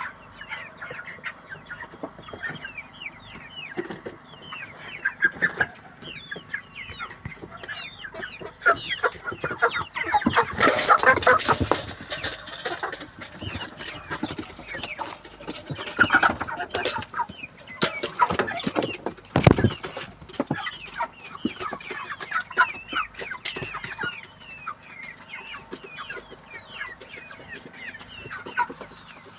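A flock of broiler chickens peeping and clucking continuously in many short, high, falling calls, growing louder and denser about ten seconds in. A few sharp knocks sound about two-thirds of the way through.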